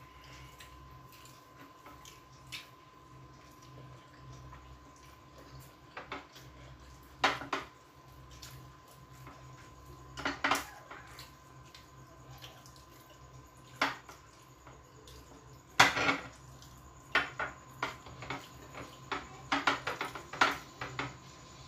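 Scattered clinks and knocks of plates and dishes being handled while rice and chicken are eaten by hand from them, the loudest about 16 seconds in and a quick run of them near the end. A faint steady hum lies underneath.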